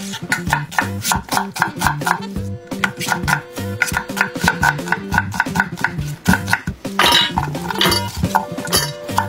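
Knife chopping onion on a wooden cutting board, repeated sharp strikes, over background music with a steady beat. Near the end, a short rustling scrape and clatter as the chopped onion goes off the board into a stainless steel bowl.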